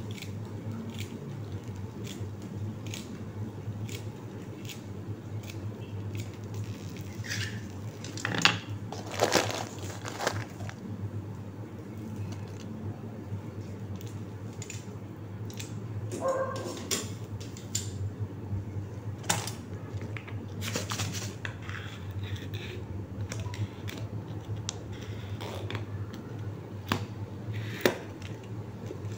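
A metal spoon and kitchen utensils clinking and scraping against a small metal frying pan on a stove, in scattered knocks and clinks over a steady low hum.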